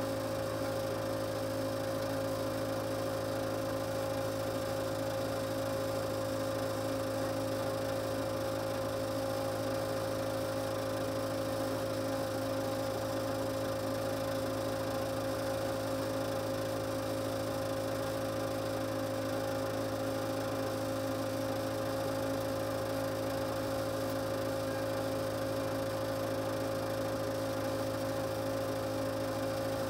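Case 580C backhoe engine idling, heard from inside the cab as a steady, unchanging hum.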